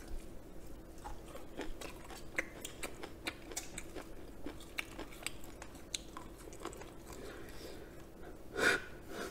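Close-miked chewing of fried chicken and sauce-soaked shredded green onion: many small wet clicks and crunches over a faint steady hum. A brief louder sound comes near the end.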